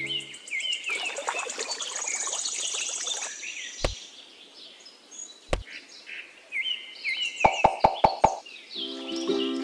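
Birds chirping, with a high trill early on, two sharp clicks midway and a quick run of about six clicks near the end; backing music comes back in just before the end.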